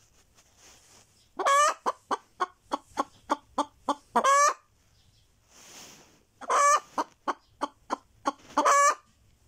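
Naked-neck hen cackling in two bouts: each a long squawk, a quick run of short clucks at about three a second, and another long squawk. This is the egg song hens give around laying an egg.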